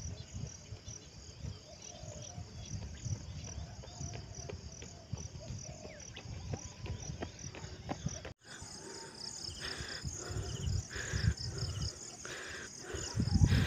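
Chorus of insects chirping in a steady, even pulse, over an uneven low rumble. After a cut about eight seconds in, the chirping goes on and a second, lower call repeats in short bursts.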